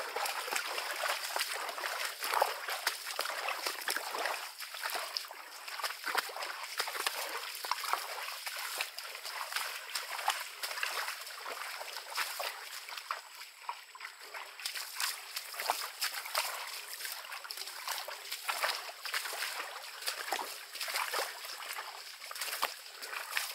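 Bare feet splashing and squelching through shallow water and mud, an irregular patter of small splashes throughout.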